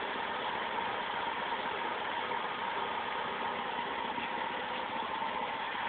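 Vauxhall Senator C30SE 3.0-litre 24-valve straight-six idling steadily when fully warm, at a settled idle of about 560 rpm, with a steady whine on top.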